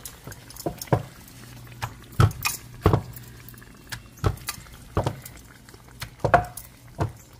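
A wooden rolling pin knocking against a wooden board as dough is rolled out, about seven sharp knocks roughly a second apart, over a steady low hum.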